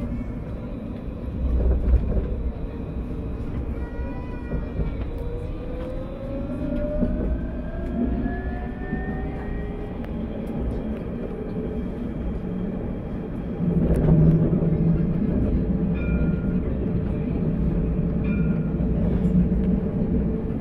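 Paris T3a tram running on its rails, with a steady low rumble. From about five seconds in, a whine rises in pitch as the tram's traction motors pull it up to speed. About fourteen seconds in, the rail rumble gets louder and stays so.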